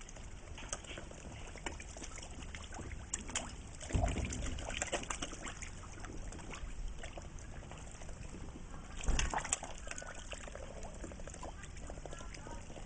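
Ducks and fish splashing and sloshing at the water's surface as the ducks feed the fish, with many small splashes and two louder ones about four and nine seconds in.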